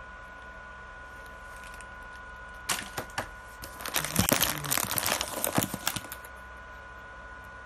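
Plastic snack wrappers crinkling and crackling as a hand rummages among packaged sweets, in a dense burst of about three seconds that starts nearly three seconds in.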